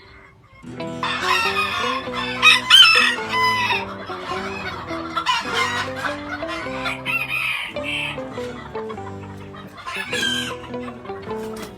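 A rooster crowing and chickens clucking, loudest a couple of seconds in and again near the end, over background music with sustained notes.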